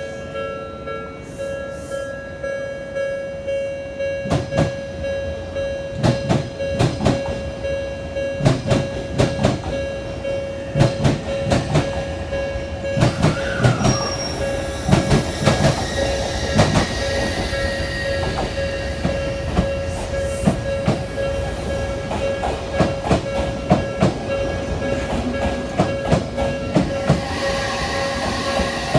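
Odakyu electric train wheels clattering over rail joints in quick pairs, "dadan, dadan", starting about four seconds in and densest through the middle. A level-crossing warning bell rings steadily underneath.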